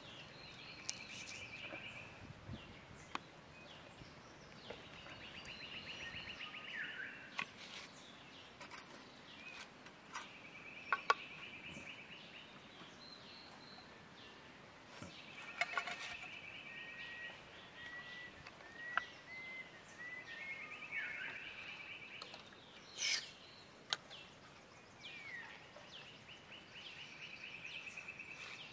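Forest birdsong: a bird repeats a short rapid trill about every five seconds, with a few thin whistled notes from other birds in between. Sharp clicks and knocks from camp gear being handled stand out over it, the loudest about eleven and again about twenty-three seconds in.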